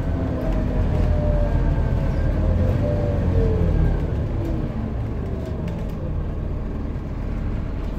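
Inside a Scania CN230UB single-deck bus on the move: steady diesel engine and road rumble, with a faint whine that falls in pitch over the first few seconds.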